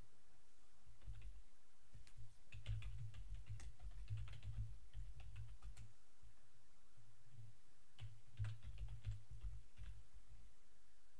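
Typing on a computer keyboard: runs of keystrokes from about two to six seconds in and another run around eight to nine seconds in.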